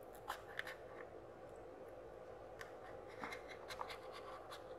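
Faint scattered clicks and scratches of a pry tool and fingers working along the edge of an iPhone XR's display, the adhesive under the screen still holding it.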